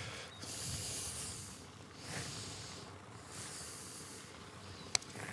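A single sharp click of a putter striking a golf ball about five seconds in. Before it, soft hissing swells and fades every second or two.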